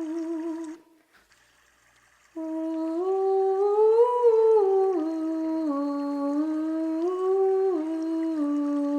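A single voice humming a slow wordless intuitive chant, holding long notes that step up and down in pitch with a slight waver. It breaks off for about a second and a half near the start, then resumes, climbs to a high point and steps back down.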